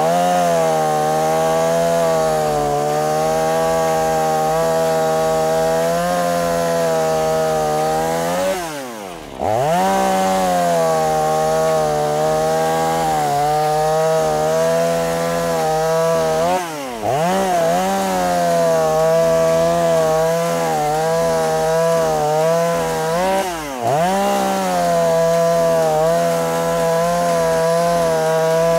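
Two-stroke petrol chainsaw running at high throttle while its freshly sharpened chain cuts through a hardwood block. Its pitch drops and climbs again three times as the throttle is eased and reopened between cuts.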